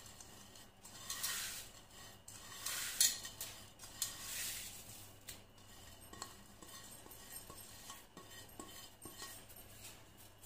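Crushed fried onions being scraped off a plate into a pot of paya curry, with utensil-on-dish scraping. There are three or four short scrapes in the first half, then only faint clinks.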